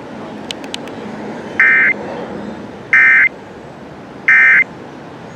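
Emergency Alert System end-of-message signal: three short bursts of SAME data warble, about 1.3 seconds apart, marking the end of the alert test. Steady low hiss between the bursts, with a few faint clicks near the start.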